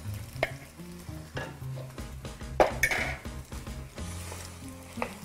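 Wooden spoon stirring rigatoni in a hot metal pan as an egg and cream mixture goes in, with the pan sizzling and the spoon scraping against it several times, loudest about halfway through. Quiet background music plays underneath.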